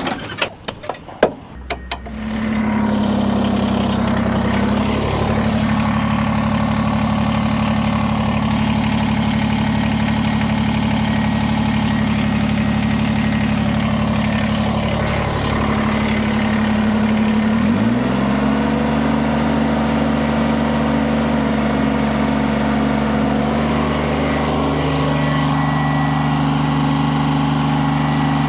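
Kubota BX23S tractor's three-cylinder diesel engine running at high throttle while the loader hydraulics lift against a load. Its note sags and recovers a few times as the hydraulic pump takes the load, most sharply a little after halfway. There are a few sharp knocks in the first two seconds.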